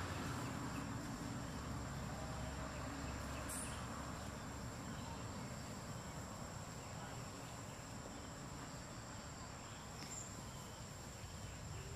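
Outdoor ambience: insects droning a steady, high-pitched note over a low background rumble.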